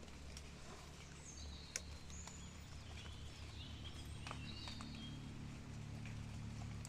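Birds calling with short, high whistled notes, some gliding, over a low steady rumble, with a few sharp clicks; the loudest click comes about two seconds in.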